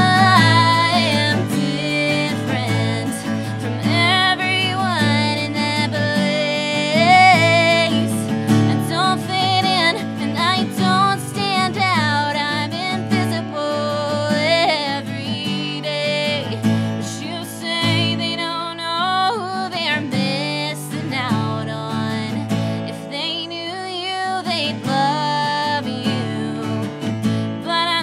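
A woman singing, accompanying herself on a strummed acoustic guitar.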